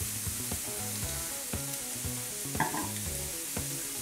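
Onion and carrot strips sizzling steadily in oil in a frying pan, while a spatula stirs rice into a saucepan of turmeric water with a few light clicks against the pot.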